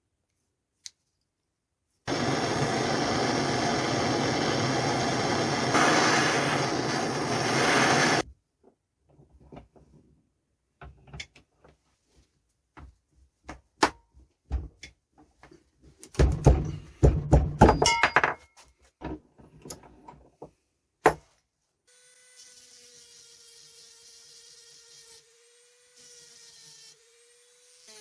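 A power tool runs steadily for about six seconds, then stops; scattered knocks and clicks follow, with a loud flurry about halfway through, and near the end a faint steady motor hum. This is hand and power-tool work on the parts of a rusty vintage machinist vise being restored.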